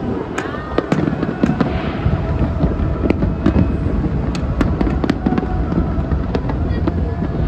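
Aerial fireworks display: a rapid, irregular run of sharp bangs and crackles from bursting shells, over a continuous low rumble of overlapping reports.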